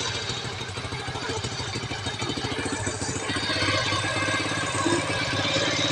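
A motorcycle engine running steadily at idle with an even, rapid beat after an overhaul with a new cylinder block and piston. It grows a little louder and brighter about three seconds in.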